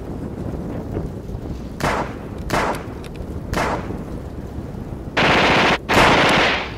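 Blank gunfire in a staged battle: three single rifle shots about a second apart, then two loud bursts of automatic fire near the end.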